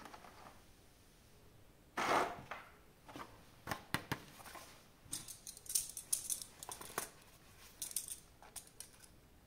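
Hands handling small plastic action-figure parts and packaging: a short rustle about two seconds in, then a run of small clicks and crinkly rustles.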